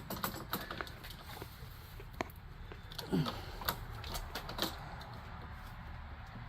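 Scattered light clicks and taps of a screwdriver and breaker parts being handled in a home electrical panel during a circuit breaker replacement, a few sharper clicks standing out.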